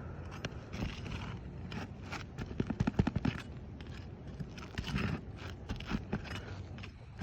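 Irregular scraping and sharp knocks of hand work on roof shingles, with a cluster of louder knocks around the middle.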